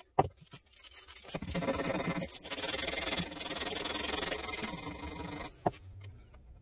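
Hand sanding a wooden rifle stock with 120-grit sandpaper wrapped round a stainless steel bar: a steady rasping scrub for about four seconds, smoothing a glue-and-sawdust filled repair flush. A short knock comes just after the start and another near the end.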